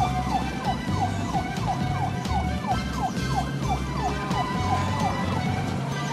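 Cartoon emergency-vehicle siren effect: a quick falling yelp repeated about three times a second.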